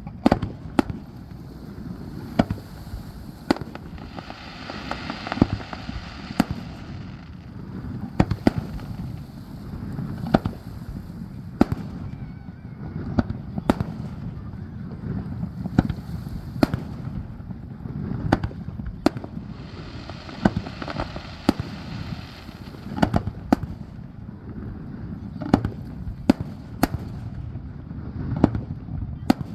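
Aerial fireworks shells bursting in a steady string, a sharp bang every second or two. There are two stretches of dense crackling from crackle-effect shells, about four seconds in and again around twenty seconds in.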